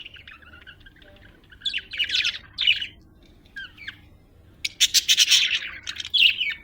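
Budgerigars (budgies) chirping in bursts: a run of chirps about two seconds in, a few short calls around four seconds, then a louder, denser burst of chatter from about five seconds until near the end.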